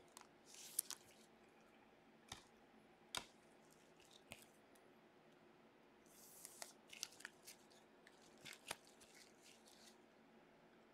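Faint rustling and a scattering of light clicks as trading cards and card packs are handled with gloved hands, with otherwise near silence.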